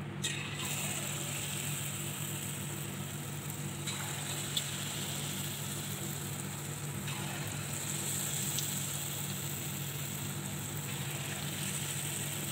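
Lumps of dough dropped into hot oil in an aluminium kadai, bursting into a steady frying sizzle just after the start; more pieces go in about four and seven seconds in, each freshening the hiss. A steady low hum runs underneath.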